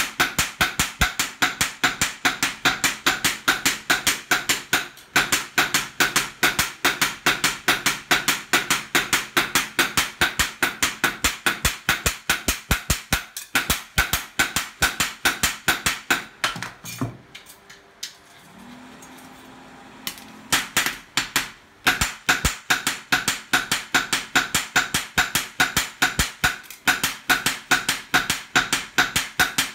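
Two hand hammers taking turns striking a steel gyuto knife blade on an anvil, a quick, even run of ringing metal-on-metal blows. The hammering stops for about three seconds a little past the middle, then picks up again at the same pace.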